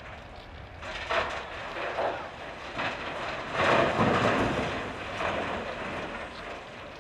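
Blasted rock pouring from a Volvo L260H wheel loader's side dump bucket into a dump truck's steel bed: a rough, rumbling clatter that starts about a second in, swells to its loudest around the middle with a few heavier thuds, and fades near the end.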